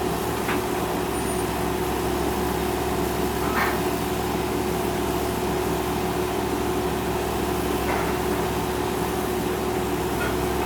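Excavator diesel engine running steadily at an even speed, a constant drone with no revving.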